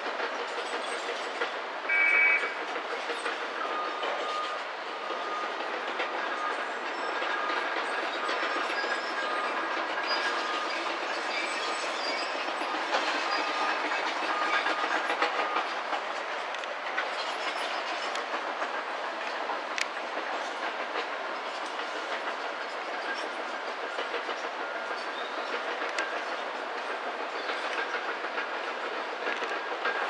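A Shinano Railway train running past, a steady noise throughout, with a short high-pitched tone about two seconds in and a faint whine for several seconds after it.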